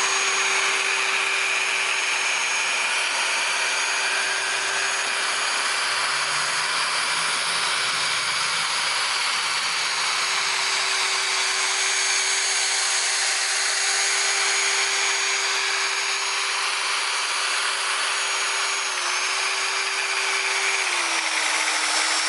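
Electric polisher spinning a wool cutting pad with compound against a car's painted fender, a steady motor whine over the hiss of the pad on the paint. The whine dips briefly about three seconds before the end and then drops lower, as if the tool slows under pressure or is being let off.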